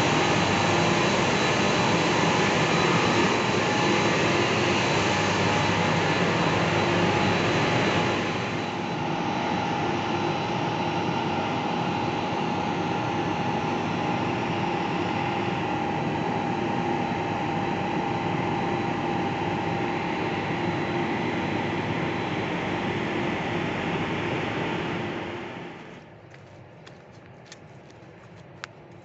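Machinery of a water-supply pump house running: a steady, loud drone with a hum in it. It drops noticeably about eight seconds in and fades away near the end, leaving a few faint footsteps.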